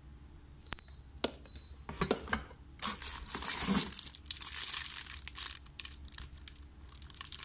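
A few light taps, then from about three seconds in, plastic wrapping crinkling and rustling steadily as a bundle of shrink-wrapped metal extension poles is handled.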